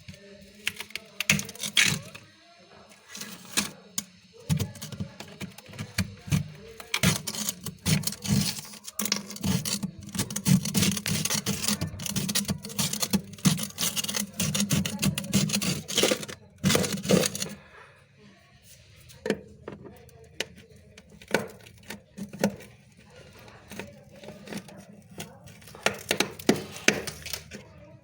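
Freezer frost crunching: a dense run of sharp crunches and crackles for about thirteen seconds, then fewer, quieter clicks.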